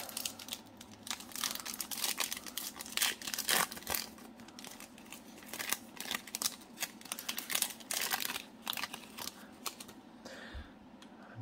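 Foil wrapper of a Select basketball card pack crinkling and tearing as it is ripped open by hand, a run of irregular crackles that dies down near the end.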